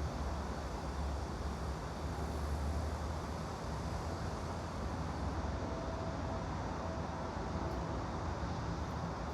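Steady background ambience of white noise with a low rumble underneath, and a faint thin tone coming and going in the second half.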